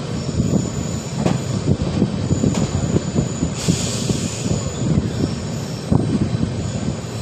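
Passenger train running slowly, heard from on board: a steady low rumble with irregular knocks of the wheels over rail joints, and a brief hiss about halfway through.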